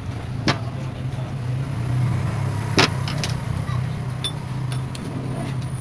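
Sharp metallic clicks, about half a second and about three seconds in, with a few fainter ticks later, as a rebuilt motorcycle rear monoshock is handled and set down on the bench, over a steady low hum.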